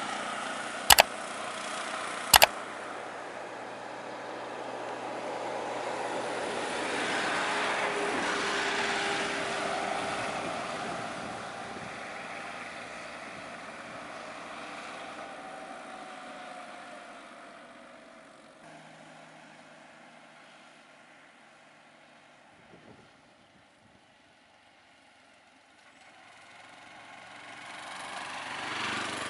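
Road traffic: vehicle engines and tyre noise swelling and then fading away, and rising again near the end. Two sharp clicks come about one and two and a half seconds in.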